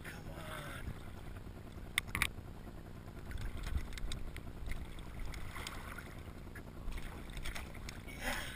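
Water sloshing against a kayak hull under a low rumble, with two sharp clicks about two seconds in.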